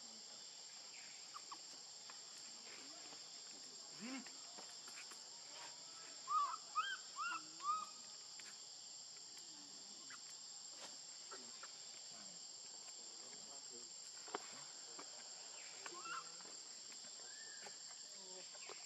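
Steady high-pitched insect drone of a forest, with a quick run of about five short high calls about six seconds in, and a few faint clicks.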